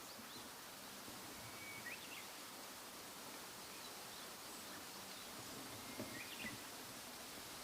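Faint bird calls over a steady outdoor hiss: a short held note running into quick rising chirps, about two seconds in and again about six seconds in.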